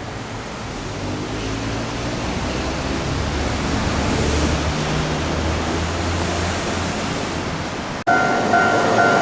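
Nishitetsu electric train running past on the ground-level track: a rush of wheel and running noise with a low motor hum, building and then easing. About eight seconds in it cuts suddenly to a level-crossing warning alarm ringing in a steady, evenly pulsing two-tone ring.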